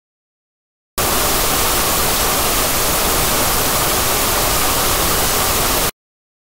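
Television static: a loud, even hiss of white noise that starts abruptly about a second in and cuts off suddenly near the end.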